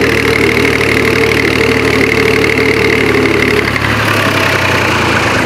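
Old tractor engine running steadily close up, with an even mechanical hum; its note drops and changes about four seconds in as the engine slows.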